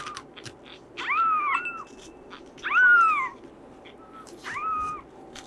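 Baby kitten meowing, several high-pitched calls that rise and fall, the one about three seconds in the loudest.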